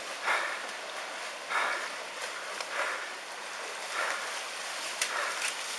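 Tsunami floodwater rushing through a lane: a steady rush of water with a louder splash about every second.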